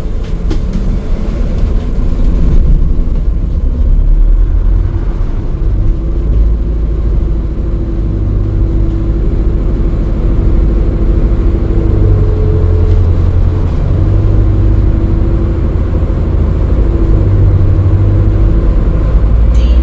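Cabin sound of a moving Alexander Dennis Enviro400 MMC diesel-electric hybrid bus: a steady low road and drivetrain rumble with a faint whine that drifts slightly in pitch with speed.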